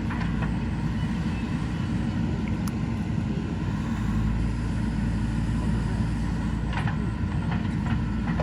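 JCB 3DX Super backhoe loader's diesel engine running steadily, with a few faint clicks near the end.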